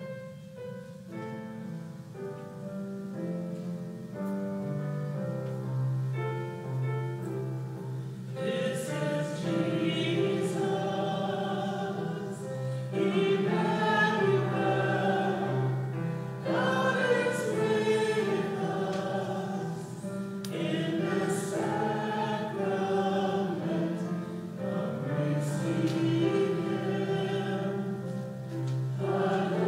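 A communion hymn at Mass. An instrumental introduction of sustained notes moving in steps plays first, then singing joins about eight seconds in, with the accompaniment continuing beneath it.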